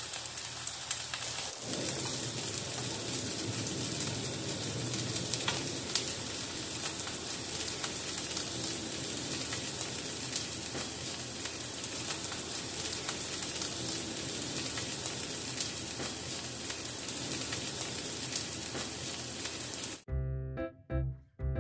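Tofu, tuna and kimchi patties sizzling in oil in a nonstick frying pan: a steady hiss with scattered pops. Near the end the sizzling cuts off and keyboard background music takes over.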